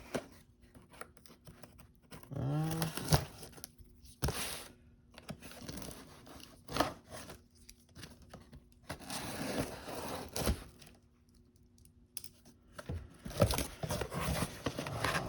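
A shipping package being torn open by hand: irregular bursts of ripping and crinkling packaging with sharp clicks, separated by short pauses.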